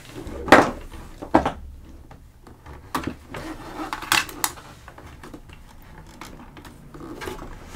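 Small plastic toy playset pieces being handled: a few sharp clicks and knocks, spaced irregularly.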